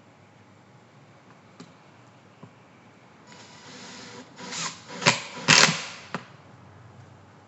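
Handling noises: two faint clicks, then a scraping that builds about three seconds in, with a few sharp clicks and a short rattle around five to six seconds in.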